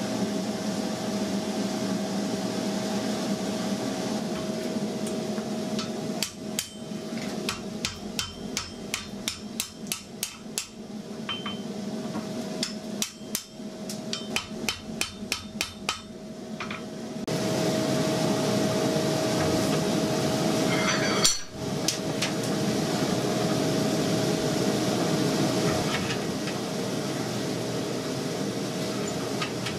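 A run of sharp hammer blows on hot steel, evenly paced at about two to three a second, from about six to sixteen seconds in. A steady mechanical hum with one held tone runs under them and grows louder once the blows stop.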